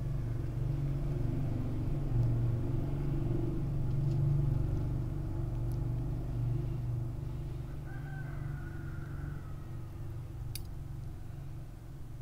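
A steady low rumble that eases off in the second half, with a rooster crowing once about eight seconds in.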